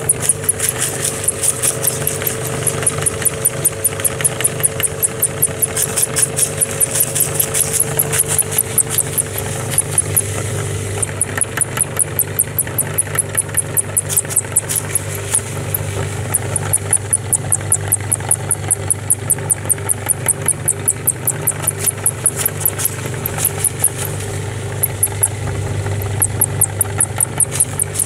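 Belt-driven electric meat grinder running steadily with a low hum, a sharp click repeating about three times a second as it turns, while puffed snacks are fed into the hopper and ground by the auger.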